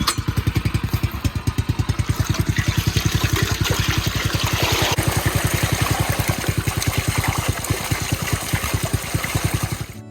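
Small engine running steadily close by, a rapid even low pulse, with a hiss over it that swells midway through. It cuts off just before the end.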